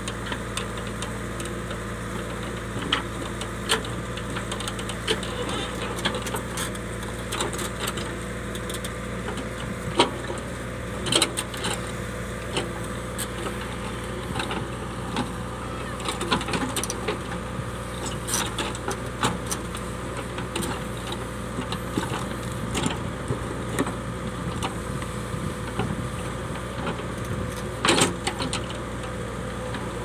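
JCB 3DX backhoe loader's diesel engine running steadily as the backhoe bucket digs through rocky soil. Scattered sharp knocks and clanks of stones against the bucket break in, the loudest about ten seconds in and again near the end.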